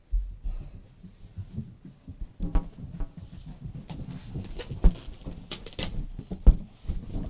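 Inflated rubber balloons bumping and rubbing against the camera, giving irregular knocks and thumps over a low rumble of handling noise.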